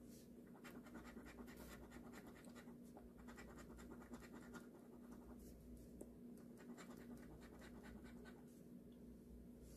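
A coin scratching the coating off a scratch-off lottery ticket: faint, quick rasping strokes in runs, with a short pause near the end, over a faint steady hum.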